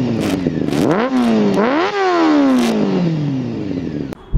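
Benelli 600 GT's inline-four engine revved through an IXIL aftermarket exhaust. The pitch climbs and drops back in a quick blip, then climbs again and winds down slowly, stopping abruptly near the end.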